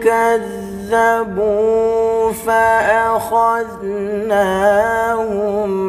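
A young man's solo voice in melodic Qur'anic recitation (tilawah), drawing out long melismatic notes with wavering turns and ornaments, broken by a few short pauses.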